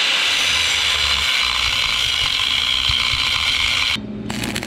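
Angle grinder cutting through a steel tube mount, a loud steady high grinding whine. About four seconds in it cuts off abruptly, and a quieter low steady hum follows.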